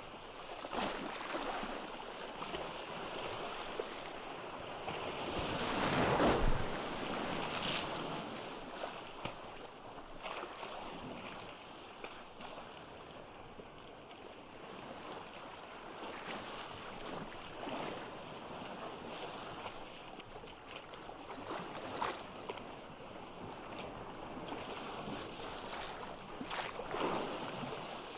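Ocean waves washing onto a beach. The largest wave swells and breaks about six seconds in, followed by smaller washes and the fizz of receding surf.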